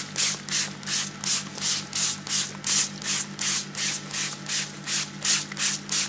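Pastry brush swishing egg wash onto proved bread rolls in quick, even strokes, about three a second, over a steady low hum.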